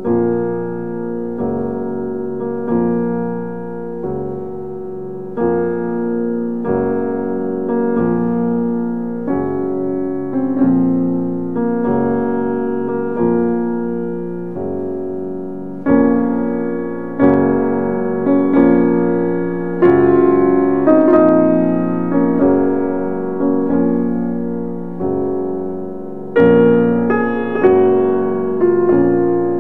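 Background piano music: slow, sustained chords struck roughly every second and a half, each fading before the next.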